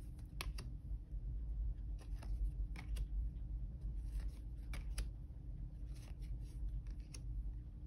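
Tarot cards being handled, turned over and laid down: a string of soft, irregular taps and slides, about a dozen, over a low steady hum.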